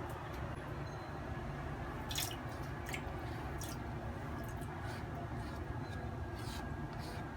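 Water dripping and splashing in scattered short drops, with wet squelching, over a steady low background hum.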